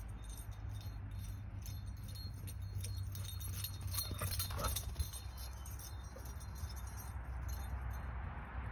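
Steady wind rumble on the microphone, with light clicking and jingling as a dog runs across a lawn, the clicks thickest about halfway through as she runs up close.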